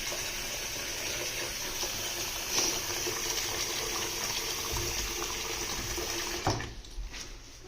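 Bathroom sink faucet running steadily into the basin, then shut off with a short knock about six and a half seconds in. The water is being run to check that the freshly repaired sink drain no longer leaks.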